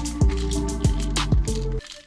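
Background music with a beat of deep, pitch-dropping bass drum hits and sharp snare or hi-hat hits over held bass notes. The bass drops out near the end.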